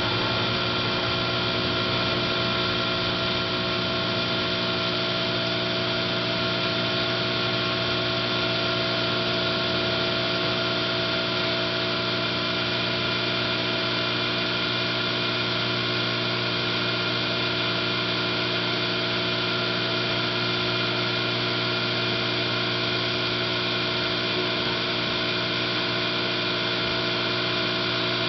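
Sharp Half Pint compact microwave oven running: a steady electrical hum made of several even tones, unchanging throughout.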